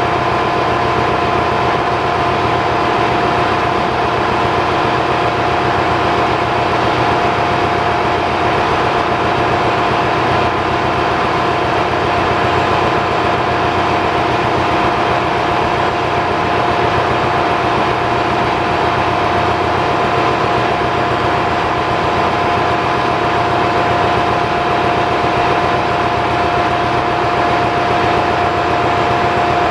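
Marine diesel engine running steadily, a loud, unbroken drone with a steady high whine over it, the mixed noise of a ship's engine room.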